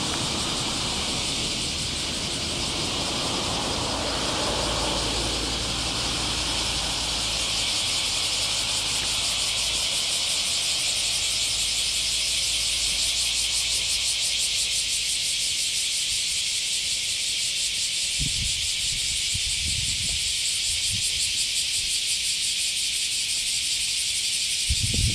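Cicadas singing in a dense, shrill chorus, a steady high buzz with a fast pulsing texture throughout. A low rumble sits under the first half, and a few low thumps come near the end.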